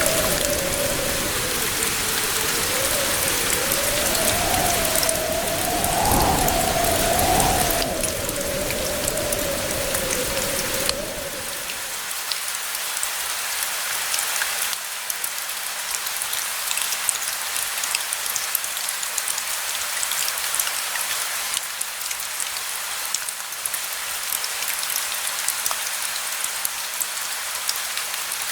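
Steady rain falling. For about the first twelve seconds a low rumble of distant thunder runs under the rain, with a wavering tone over it, swelling around six seconds in; both cut off suddenly, leaving only the rain.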